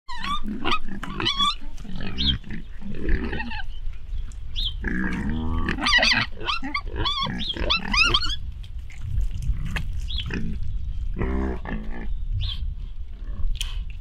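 A group of piglets squealing. Many short, high squeals come packed close together for the first half, with a few lower, longer calls among them, and the calls thin out later, over a steady low rumble.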